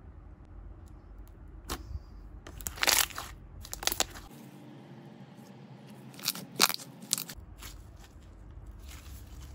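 Thick glossy slime being stretched and pressed by hand, giving scattered sharp pops and crackles, some of them air bubbles popping in the slime.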